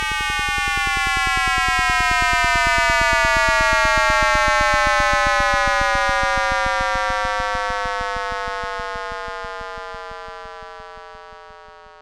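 Synthesized tone presented as the sound of the Big Bang: a pitched drone with many overtones, slowly falling in pitch over a fast, even buzz. It swells to its loudest about four seconds in, then fades away.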